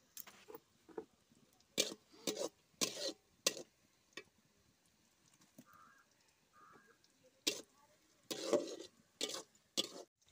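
Twigs and dry leaves crackling and snapping as a wood fire catches in a clay chula: about a dozen sharp, irregular cracks, with a lull of several seconds in the middle.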